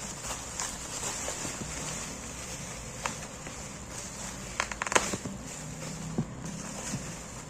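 Handling noise while unboxing a book set: scattered light rustles and taps, with a quick run of sharper clicks about five seconds in, over a steady hiss.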